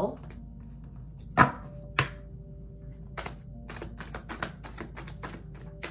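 A tarot deck shuffled by hand: a run of quick, irregular clicks as the card edges snap against each other, with two louder knocks early on.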